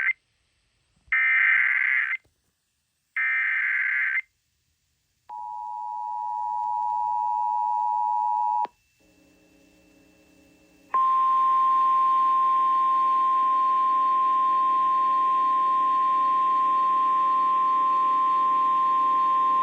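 Emergency Alert System tones for a tornado warning on radio. First come three short screechy digital SAME header bursts about a second apart, then the two-tone EAS attention signal for about three seconds. After a brief gap, a single steady tone, the NOAA Weather Radio warning alarm, sounds for about nine seconds over a low buzz.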